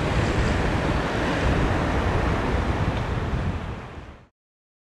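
Wind buffeting the microphone: a steady, rumbling rush with gusty low flutter, which fades out and stops about four seconds in.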